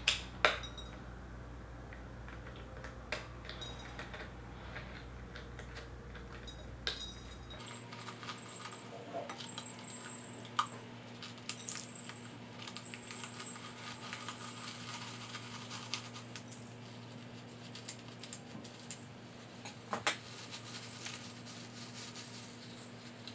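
Scissors snipping into a bead-filled latex balloon with a few sharp clicks. Then clear plastic filler beads pour out into a glass dish as a dense run of tiny clicks and clinks, with one louder clink near the end.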